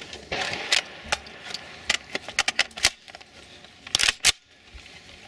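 A run of sharp metallic clicks and clatters, irregular and some in quick clusters, with the loudest pair about four seconds in: small parts being handled, likely a rifle or its magazine being worked between strings of fire.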